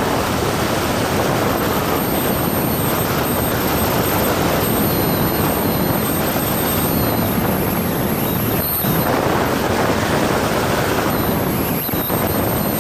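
Cessna 172 engine and rushing airflow heard as a steady, dense noise, without a clear beat or pitch.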